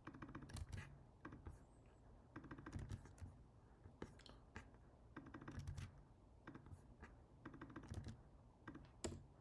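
Faint computer keyboard typing in short bursts of keystrokes, about seven bursts spaced a second or so apart.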